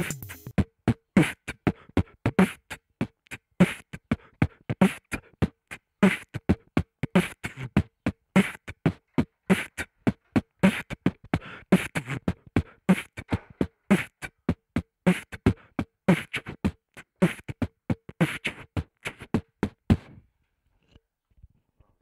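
Background music made of a quick beat of short, dry percussive hits. It stops shortly before the end.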